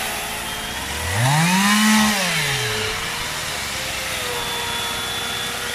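Two chainsaws cutting a log at once: a corded electric chainsaw running with a steady whine, while a petrol two-stroke chainsaw revs up to full throttle about a second in and drops back about two seconds later. Both chains are blunt, and the owners reckon they need sharpening.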